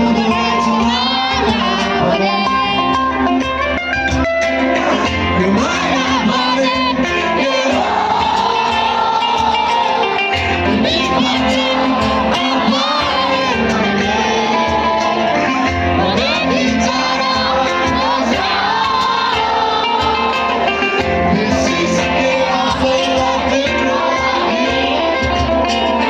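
Live band playing a song with a lead singer and guitar, loud and continuous.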